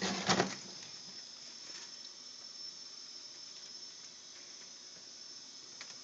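A brief scrape or rub in the first half second as a hand brushes the thick ice built up in the freezer compartment, then a faint steady hiss with a few small ticks.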